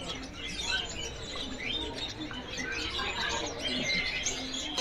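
Many caged songbirds chirping and calling over one another: a dense chorus of short chirps and whistles.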